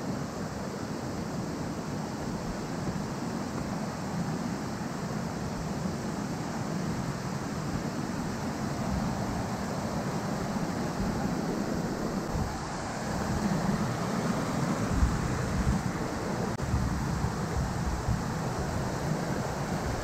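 Mountain stream rushing steadily over rocks and small rapids, a constant even wash of water. From about two-thirds of the way in, a few low bumps break through.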